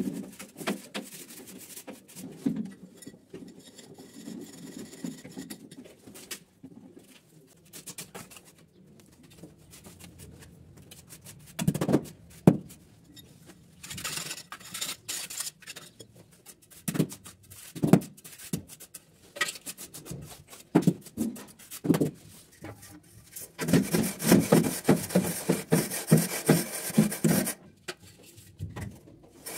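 Mason's trowel and a metal straightedge scraping and tapping on a damp sand-cement mortar bed, in scattered strokes, then a few seconds of quick back-and-forth scraping near the end as the bed is screeded level.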